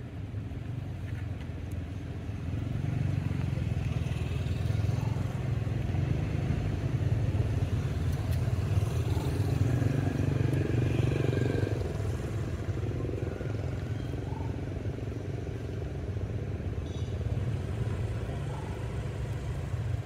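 Low, steady engine rumble, swelling a few seconds in and easing off somewhat after about twelve seconds.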